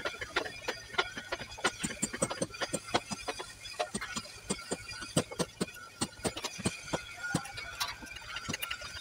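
Rapid, irregular clicking and tapping, several sharp clicks a second.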